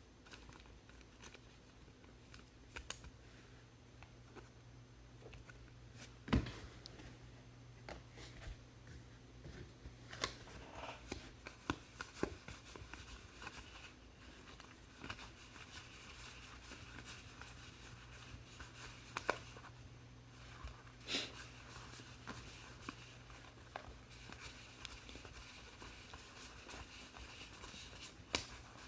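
Faint handling of trading cards and card packs: scattered light clicks, taps and short rustles over a low steady hum.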